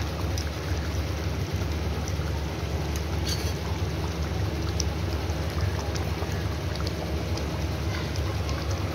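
Rohu fish curry bubbling and sizzling in a steel kadhai on the stove: a steady rain-like hiss over a constant low rumble, with a ladle stirring and a few light clicks against the pan.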